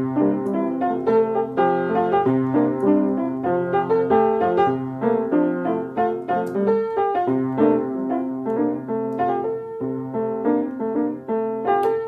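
Piano music: a busy melody over changing chords, played without pause.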